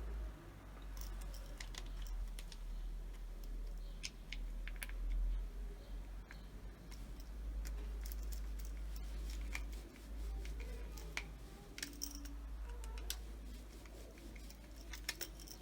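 Scattered small clicks, snips and scrapes of hand work on a multi plug's wiring as wires are joined directly in place of the removed switch, over a steady low hum.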